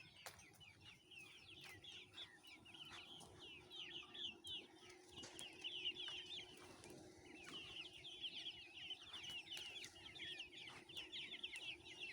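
A flock of poultry calling continuously: many short, overlapping, high-pitched calls, each dropping in pitch, with a faint steady hum underneath.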